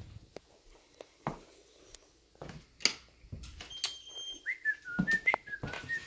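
Scattered clicks and knocks of things being handled, then a short high steady tone, and from about four and a half seconds in a wavering whistle that steps up and down in pitch.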